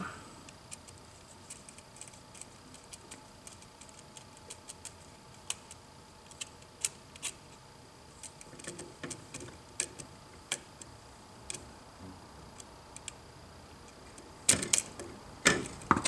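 Irregular light metallic clicks and ticks of a screwdriver tightening the terminal screws on a 15-amp duplex receptacle, with a louder clatter of clicks near the end.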